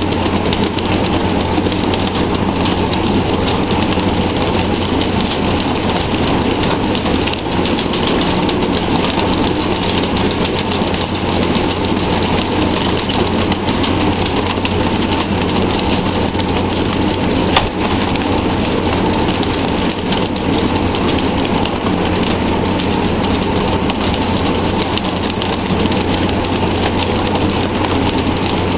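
Steady rushing and splashing of water along the hull of a pole-and-line tuna boat over the low hum of the vessel's engine, with scattered small knocks and one sharper knock about two-thirds of the way through.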